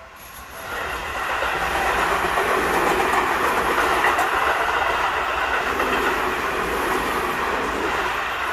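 Electric commuter train passing at close range over a level crossing, its wheels clattering over the rails. It rises quickly about a second in, stays loud, and starts to fade near the end.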